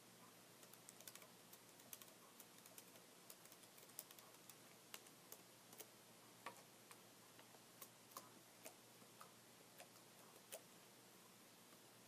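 Soft, irregular clicks of fingers typing and tapping on a computer keyboard, over a faint steady hiss.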